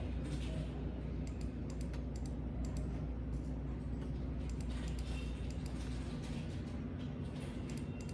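Typing on a computer keyboard: irregular keystroke clicks over a low steady hum that drops away about six seconds in.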